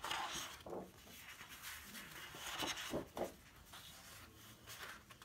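Sheets of patterned scrapbook paper being lifted, turned and laid down on a wooden table: soft rustling and sliding of paper, with a few brief louder handling sounds.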